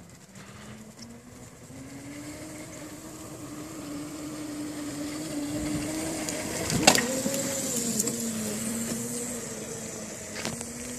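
Motor whine of a 300-watt Cruzin Cooler motorized ride-on cooler fitted with a performance kit, driving up and past fast. The whine climbs in pitch and grows louder, there is a sharp knock as it passes about seven seconds in, and then the pitch drops as it moves away.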